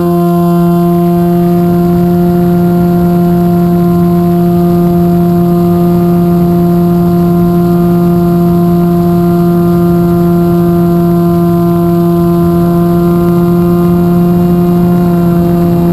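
The FPV49 V2 flying wing's electric motor and propeller running at steady throttle in flight, heard from the onboard camera. It is a loud, steady drone of constant pitch that dips slightly near the end.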